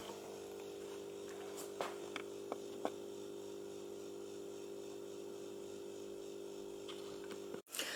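A steady, faint electrical hum, with a few soft clicks about two to three seconds in.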